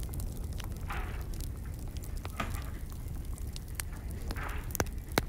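Pomegranate juice scooped with a metal bowl and poured into a large aluminium pot, splashing three times, over a steady low rumble and scattered sharp crackles from the wood fires under the cauldrons.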